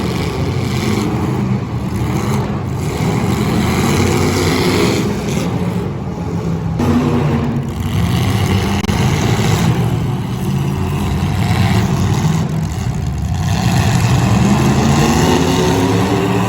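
Several demolition derby cars running and revving their engines, the pitch rising and falling.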